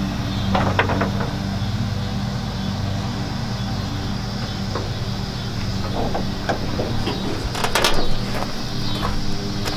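A vehicle engine idling steadily, with a few knocks and rattles of the rusty steel pickup bed being handled; the loudest knock comes about eight seconds in.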